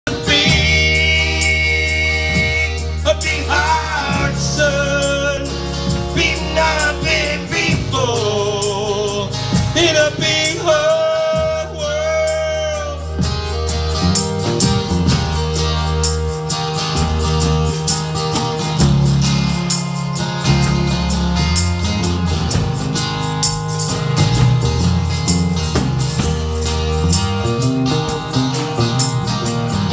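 Live band playing a song's intro on electric bass, guitars and drums, with a tambourine shaken along. A melody line that bends and wavers rides over the band for about the first dozen seconds.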